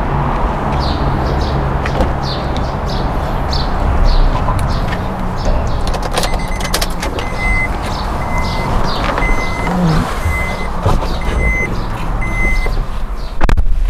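Honda Brio Amaze's electronic warning chime beeping six times, about once a second, while the driver's door is open, over a steady low vehicle rumble.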